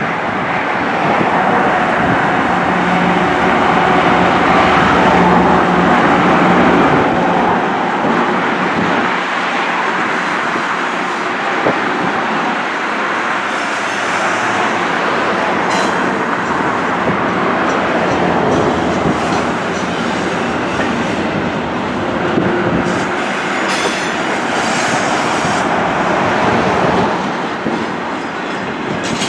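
Norfolk Southern intermodal train passing close by, led by GE C44-9W and ES44DC diesel locomotives. The locomotives' engine hum fades after about seven seconds, giving way to the steady rumble and clatter of double-stack well cars' wheels on the rails.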